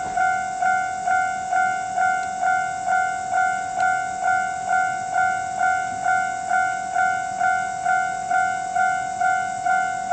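Japanese railway level-crossing warning bell ringing in a steady, even rhythm of a little over two strikes a second, signalling that a train is approaching.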